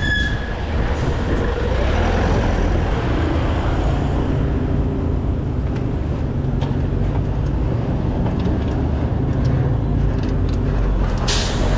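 Slow city traffic heard from a bicycle among the vehicles: a steady low engine rumble from a truck, a pickup and a city bus close by. A short hiss near the end.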